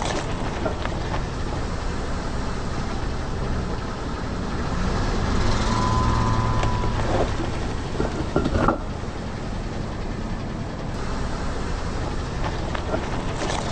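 A car engine runs slowly as the car rolls. About seven to nine seconds in comes a short burst of crackling and snapping as something is crushed under a tyre.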